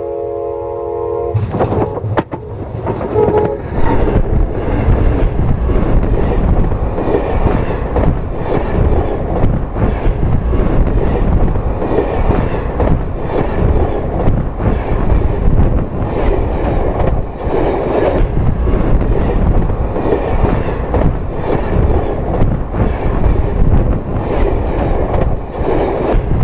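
Diesel locomotive horn sounding briefly at the start, then a WDM-3A-hauled goods train rolling directly overhead at speed: a loud, continuous rumble of the locomotive and freight wagons, with repeated clatter of steel wheels over the rail.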